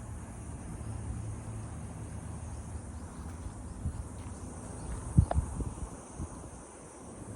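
A steady, high-pitched chorus of insects with a low rumble of wind on the microphone. A brief knock comes about five seconds in.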